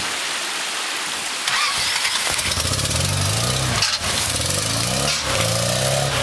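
Engine of a 1988 Toyota Pickup 4x4 revving in repeated short bursts, each rising in pitch, as the truck crawls over rocks in a creek bed. A steady hiss runs underneath.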